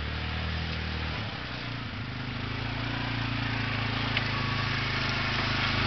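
Off-road vehicle engine running, its pitch shifting in the first two seconds and then holding steady while it grows gradually louder, as if it is drawing nearer. A short click about four seconds in.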